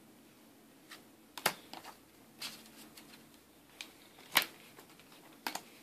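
Yu-Gi-Oh trading cards being handled and set down on a playmat: a scattered series of short, sharp taps and flicks, the loudest about four and a half seconds in.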